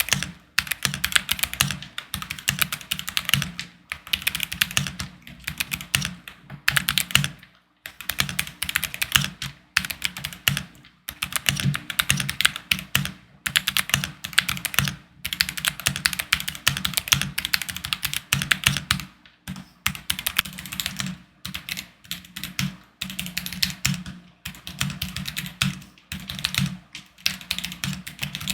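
Typing sound test on a DK67 hot-swap mechanical keyboard with stock Akko Dracula linear switches, a tape mod and silicone dampening: fast bursts of keystrokes a second or two long, broken by short pauses, each keystroke a deep thock with a bright clack on top.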